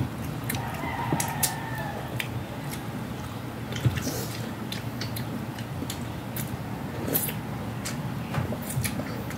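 Close-miked eating with the hands: chewing and lip-smacking, with irregular sharp clicks and smacks as fingers pick at fried dried fish and rice on the plates.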